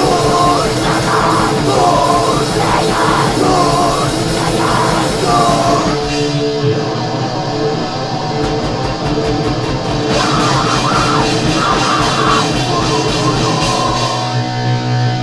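Grindcore recording: distorted guitars and fast drumming under shouted vocals. The vocals drop out for a few seconds midway, and the song closes on a held low note near the end.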